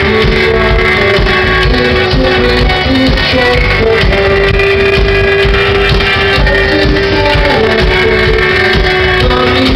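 Rock band playing a song live, with a long held note under shorter melodic notes over a steady beat.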